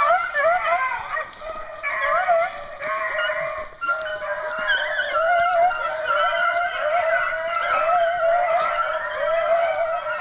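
A pack of beagles baying together while running a rabbit, several hound voices overlapping continuously with rising and falling calls.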